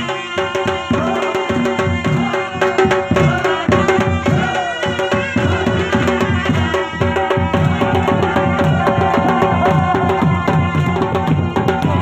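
Live traditional folk dance music of Gilgit-Baltistan's Yasin Valley: drums beating a steady, fast rhythm under a wavering melody line, with the crowd clapping along.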